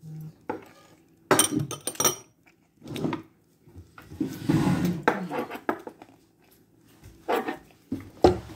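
Metal chopsticks clinking and scraping against tableware in several short bursts, the loudest cluster about a second in.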